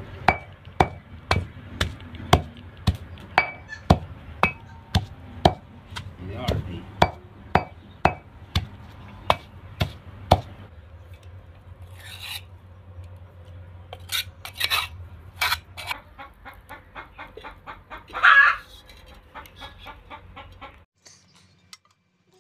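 Stone pestle pounding wet chili masala paste in a stone mortar, about two sharp knocks a second for some ten seconds. After that a spoon scrapes and clinks as the paste is gathered off the stone into a steel bowl.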